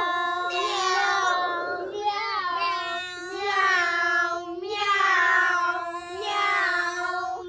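A child's voice making long, held sung or meow-like tones in several phrases one after another, without words.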